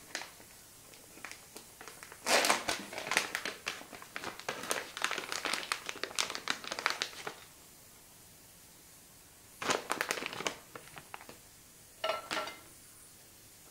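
Plastic packet of grated cheese crinkling as it is handled and tipped over a dish. A long stretch of rustling starts a couple of seconds in, followed by two short bursts near the end.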